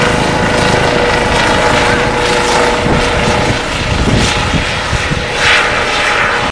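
Eurocopter EC135 police helicopter lifting off and climbing away at take-off power. Its turbines give a steady whine over the beat of the main rotor.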